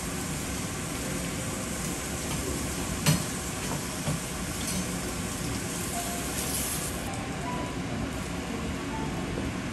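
Steady hiss and hum of a cafe's open kitchen with a flat-top griddle, broken by a short sharp tap about three seconds in and a lighter one a second later.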